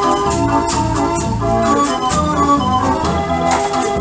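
Dutch street organ (draaiorgel) playing a tune: many sustained pipe notes in a moving melody over a bass line, with a regular beat.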